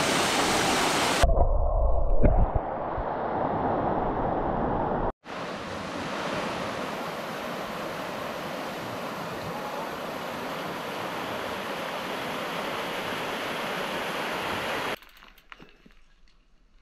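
Waterfall and river water rushing, a steady even hiss, with a brief low buffeting on the microphone about a second in and a short drop-out near five seconds. Near the end it cuts to a much quieter, faint background.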